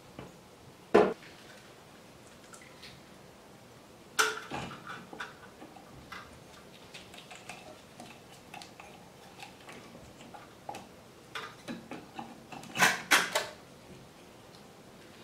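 Metal parts clinking and knocking as the cylinder head of a Yamaha TDR250's two-stroke twin is fitted over the studs onto the cylinder. There is a sharp knock about a second in, a cluster of clinks around four seconds, scattered light ticks, and a louder flurry of clinks near the end.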